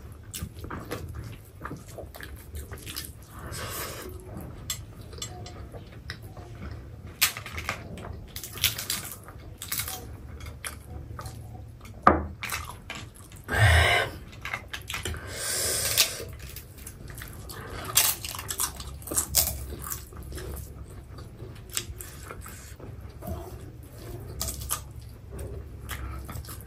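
Mukbang eating sounds: two people chewing and eating rice and curry with their hands, with irregular clicks and clinks against ceramic plates and bowls, and one sharper knock about halfway through.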